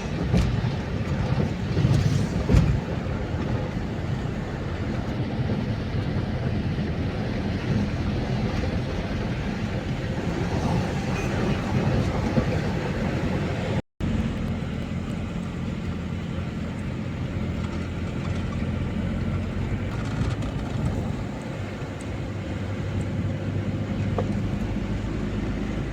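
Steady vehicle running noise, a continuous rumble with a low engine hum, with a few louder knocks in the first three seconds and a brief cut to silence about fourteen seconds in.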